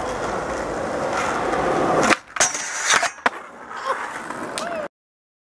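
Skateboard wheels rolling on pavement, growing louder as the board approaches, then a sharp pop, a short scraping grind on the pipe rail and a couple of hard clacks of the board. The sound cuts off abruptly near the end.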